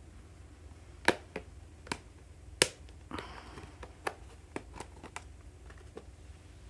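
Hands handling small containers and lids: a series of about nine sharp clicks and taps, the loudest about two and a half seconds in, with a brief rustle just after it.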